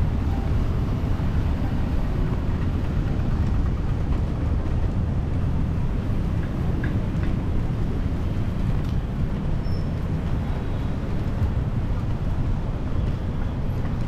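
Wind buffeting the microphone: a steady low rumble that rises and falls.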